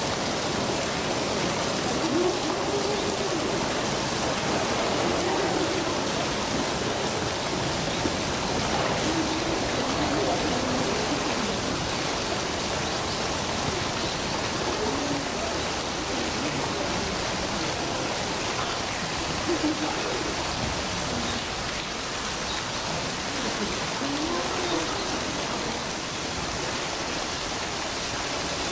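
Steady rush of running water, with faint snatches of people's voices over it now and then.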